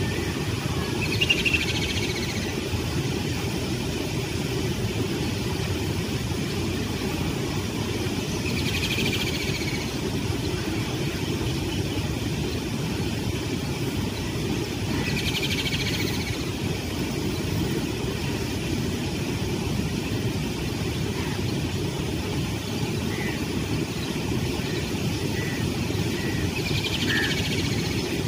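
Steady low rumble of distant road traffic, with a bird calling four times, each a short chirping phrase about seven seconds apart, and a few faint single chirps near the end.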